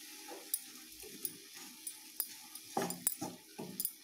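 Wooden spatula stirring and scraping chopped beetroot around a nonstick kadai: short, irregular scrapes and light knocks, with a louder cluster about three seconds in.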